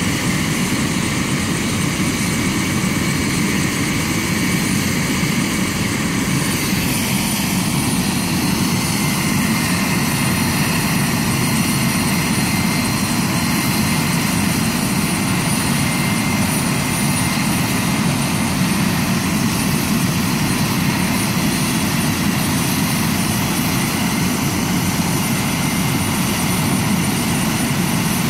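Medical helicopter sitting on the ground with its turbine engine running: a steady, even engine noise with a faint high whine.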